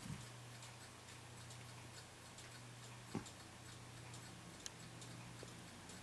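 Domestic cat purring faintly and steadily, with a regular light ticking over it. A soft knock comes about three seconds in.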